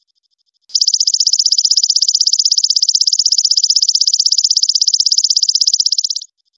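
Golden katydid (belalang emas) stridulating: a loud, high, rapidly pulsing buzzy trill starts about a second in and cuts off near the end. A faint pulsed trill is heard before and after it.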